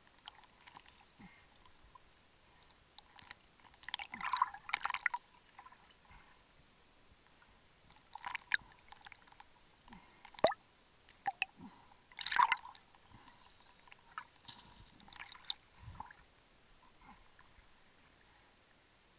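Water bubbling and dripping in short crackly bursts every few seconds, heard underwater through a camera's waterproof housing.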